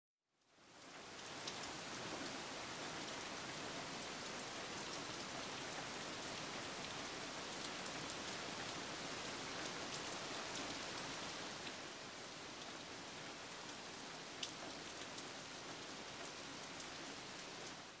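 Steady rain: an even hiss with scattered small drip ticks. It fades in just after the start and fades out at the very end.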